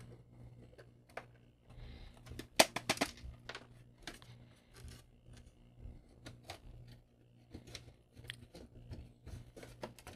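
Light clicks and knocks of hand work on a plastic floppy-drive case as its bottom screws are backed out with a small screwdriver and the parts are handled, with a sharper clatter of several knocks about two and a half seconds in.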